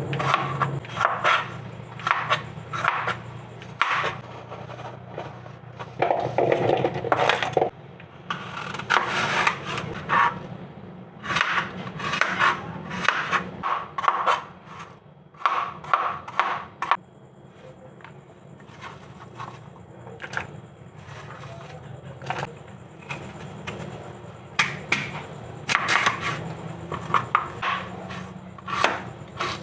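A knife cutting fruit on a wooden cutting board: irregular knocks and scrapes, with a quieter stretch in the middle.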